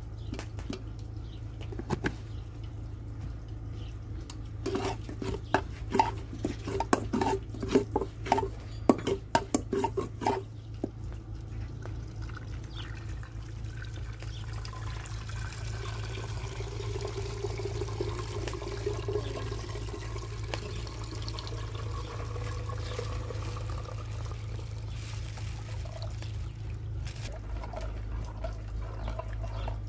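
Yogurt glugging out of a plastic jug into an aluminium pot, a quick irregular run of gurgles about five seconds in, then softer pouring and sloshing as more yogurt goes into the pot and is stirred.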